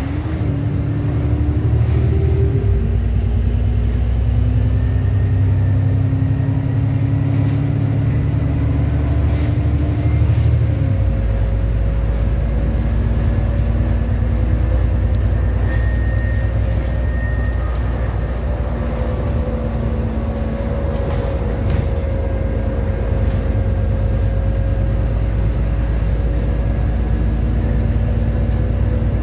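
ADL Enviro400 MMC double-decker bus under way, heard from inside the lower deck: engine and drivetrain running with steady road and tyre rumble. The engine note climbs steadily for about eight seconds, then drops suddenly about eleven seconds in as the automatic gearbox changes up, and the bus then runs on at a steadier note.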